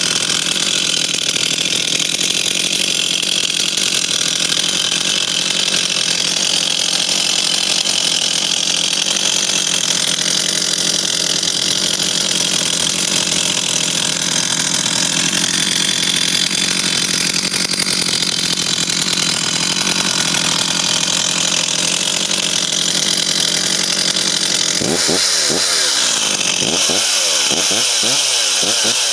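Stihl 036 two-stroke chainsaw engine running steadily, with its pitch wavering up and down in the last few seconds.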